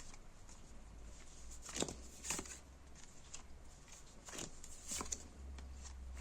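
Tarot cards being drawn and laid down on a table: a few faint soft clicks and rustles, in pairs about two and four and a half seconds in.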